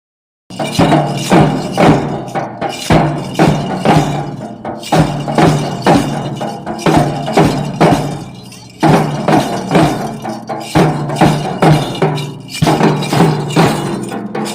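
Music with a strong, steady percussive beat, about two sharp strikes a second, over sustained low notes.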